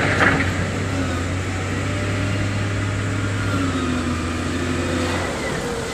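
Heavy construction machine's diesel engine running steadily at working speed, its pitch drifting slightly, with a brief noisy rush at the very start.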